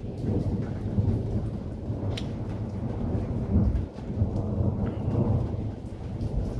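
Thunder rumbling low and long in a rainstorm. It comes in suddenly, rolls on for several seconds, eases briefly about four seconds in, then swells again.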